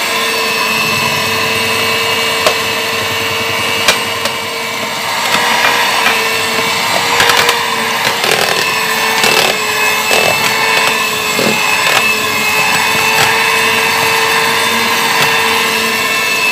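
Electric hand mixer running steadily at one speed, its twin beaters whirring through thick batter as cocoa powder is mixed in, with a few sharp ticks in the middle.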